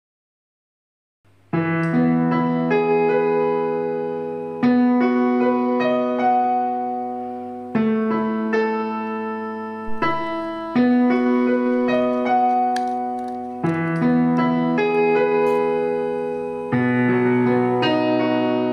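Background music of slow keyboard chords. It starts about a second and a half in, and a new chord is struck about every three seconds, each one fading slowly.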